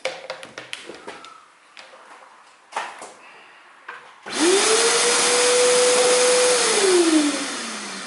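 Nilfisk Buddy II wet-and-dry vacuum cleaner, very loud: a few handling clicks, then about halfway in its motor is switched on and whines quickly up to a steady rush of air. Less than three seconds later it is switched off and winds down, its pitch falling as it fades.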